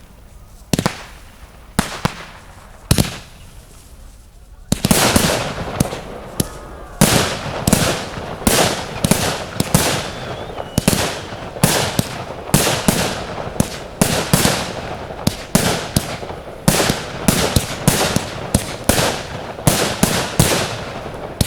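Fireworks display: a few single bangs about a second apart, then from about five seconds in a dense barrage of reports, two or three a second, over continuous crackling.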